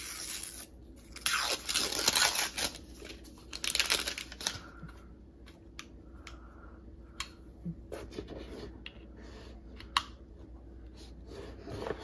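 Paper wrapping being torn and peeled off a new laptop power adapter, in three rustling bursts over the first four or five seconds, followed by a few light clicks and taps as the adapter is handled.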